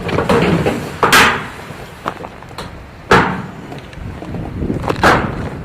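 Three sharp knocks about two seconds apart, each fading quickly, as gear is handled while climbing out of a hunting stand. Wind rumbles on the microphone underneath.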